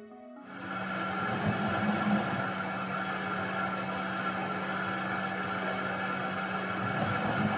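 Front-loading washing machine running a wash cycle: a steady motor hum with the drum turning, starting about half a second in.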